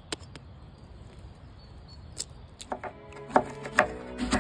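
A few sharp taps of a kitchen knife blade cracking an eggshell. From about three seconds in, music comes in with sharp clicks every half second or so.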